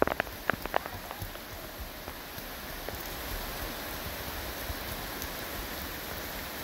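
Steady rain falling, an even hiss throughout, with a few sharp taps in the first second.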